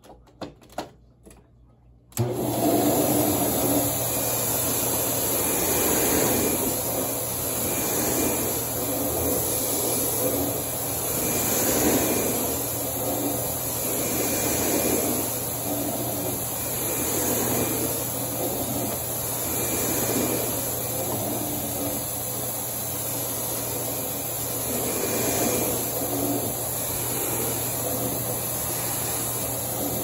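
Sharp Super Charged Twin Energy upright vacuum cleaner. A few clicks come first, then it switches on suddenly about two seconds in and runs on carpet. The running sound swells and fades regularly about every two and a half seconds.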